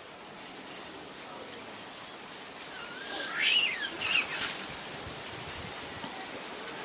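Pet monkey giving a high-pitched squealing call that rises and falls, about three seconds in, followed by a shorter squeal, over a steady low hiss.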